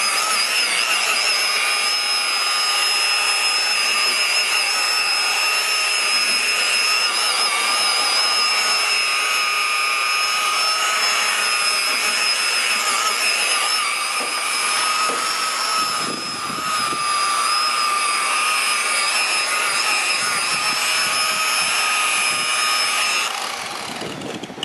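Electric polisher running steadily with a high motor whine, buffing an outboard motor's lower unit; it stops about a second before the end.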